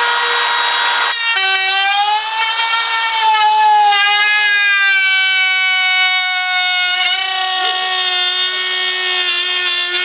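Makita compact router running at speed, a steady high whine with many overtones. About a second in its pitch drops and then stays slightly lower as the bearing-guided bit cuts along the wooden slats under load. The bit is worn dull.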